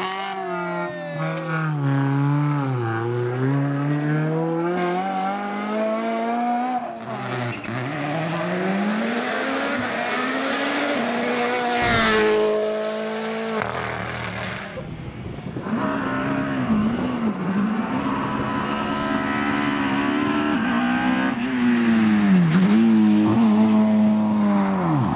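Rally car engine at full throttle, its revs climbing and dropping again and again through gear changes and braking, with tyre squeal. A sharp crack about twelve seconds in.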